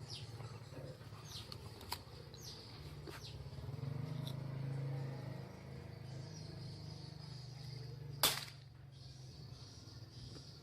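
Short, high, falling chirps of small birds, a few at a time, over a steady low hum with scattered sharp clicks. There is one loud, sharp burst a little past eight seconds in.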